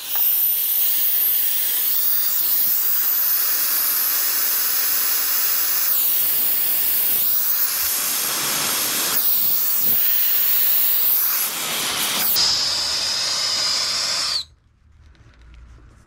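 Brazing torch with its smallest tip burning with a loud, steady hiss as it heats a refrigerator capillary-tube joint for silver brazing; the hiss cuts off suddenly about two-thirds of a second before the end as the flame is shut off.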